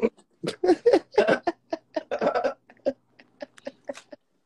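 A man laughing hard in a run of short bursts. The laughter is loudest in the first half, then breaks into sparser short bursts.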